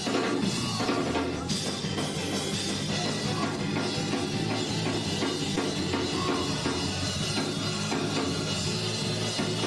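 Church worship music played by a band with a drum kit, running at a steady level.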